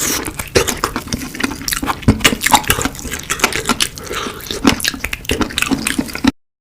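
Close-miked wet eating sounds: a person chewing and smacking on sauce-coated spicy chicken, with many sticky clicks and slurps. The sound cuts off abruptly near the end.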